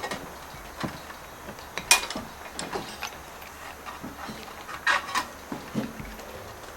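Stubai tin snips cutting step flashing: a few separate sharp metallic snips and clicks, the loudest about two seconds in, with a pair near five seconds.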